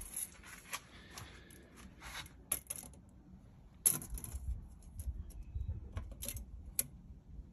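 Steel tape measure being pulled out and held against the tyre, giving a series of sharp metallic clicks and rattles, the loudest about four seconds in, with a low rumble in the second half.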